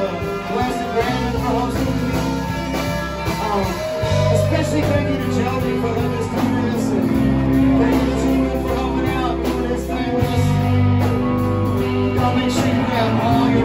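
Live band playing a rock and blues number with electric guitars, bass guitar, drums and trombone.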